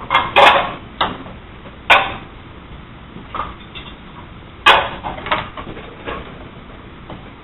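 Scattered knocks and clatter of kitchen tools on a wooden cutting board during vegetable prep, a handful of sharp hits at uneven spacing, the loudest a double knock near the start.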